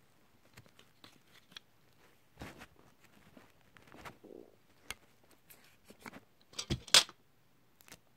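Handling noise close to a phone's microphone: scattered taps, clicks and rustles. A louder cluster of knocks and a rustle comes near the end.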